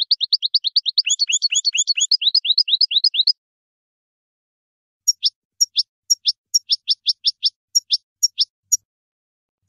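European goldfinch singing: a fast trill of high, downward-sweeping notes for about three seconds. After a short pause it gives a looser string of separate sharp, falling notes.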